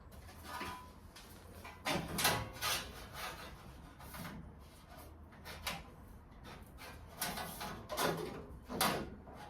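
Irregular scraping and knocking: several short strokes, some in quick pairs, spaced a second or more apart over a low steady hum.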